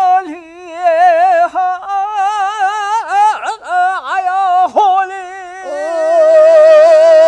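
A man singing long, held notes with a strong, even vibrato; around the middle the voice breaks off in a few quick swoops and dips, then settles into another long held note near the end.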